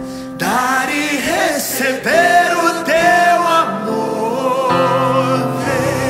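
Live worship music: a male lead singer and the congregation singing a Portuguese worship song over a band with electric and bass guitars, with some long held notes.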